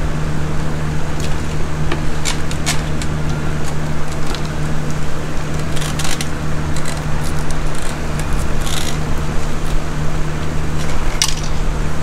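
Plastic parts of a fuel pump module clicking and rustling as gloved hands take it apart, about half a dozen sharp clicks spread through, over a steady machine hum.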